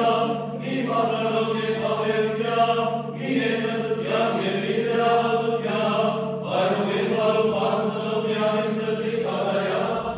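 Voices chanting a slow melody in an Armenian Apostolic church service, over a steady low note held beneath them.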